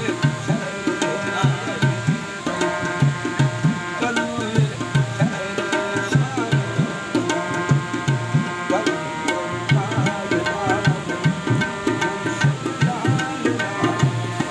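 Music with a steady drum rhythm, several low drum strokes a second, under sustained held notes and a gliding melody.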